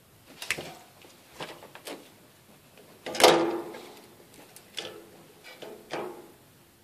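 Light clicks and knocks of small parts from a dismantled phone being picked up and handled, with one louder knock about three seconds in that rings briefly.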